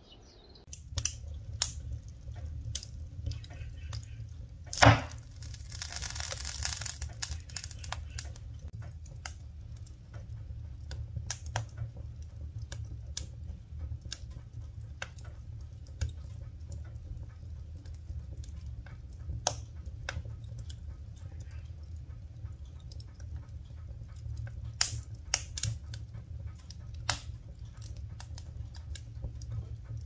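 Wood fire of split logs crackling, with irregular sharp pops over a steady low rumble. One loud pop comes about five seconds in, followed by a brief hiss.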